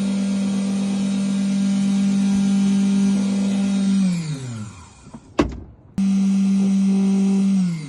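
Ninja key-cutting machine's motor running with a steady hum, then spinning down about four seconds in. A sharp click follows, then the motor starts again abruptly and spins down once more near the end. The motor runs now, though a loose internal wire has been stopping it from kicking on.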